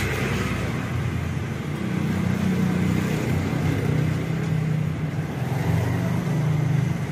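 A motor vehicle's engine running close by: a low drone that rises a little in pitch and grows louder about two seconds in, then holds.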